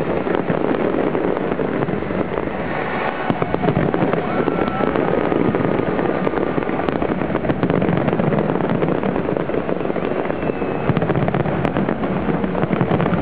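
Large-scale fireworks display: a dense, continuous barrage of aerial shell bursts with crackling stars, many small bangs and crackles run together into a steady loud din.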